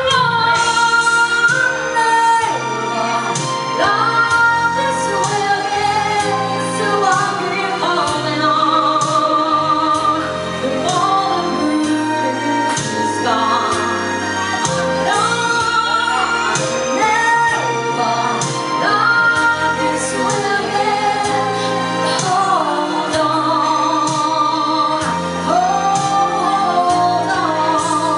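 A woman singing a slow ballad live into a microphone, with vibrato on her held notes, backed by a band with bass and drums.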